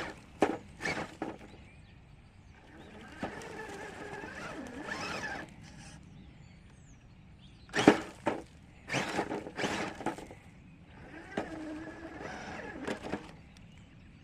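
Redcat Ascent Fusion RC rock crawler climbing over rocks: sharp knocks and clatters as the truck bumps on the rock, in a cluster at the start and another about eight seconds in, with the fainter whirr of its electric drive between them.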